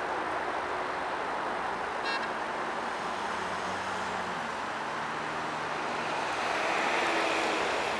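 Road traffic beside the tracks, a steady drone of car tyres and engines, with one car passing louder near the end. A brief high chirp about two seconds in.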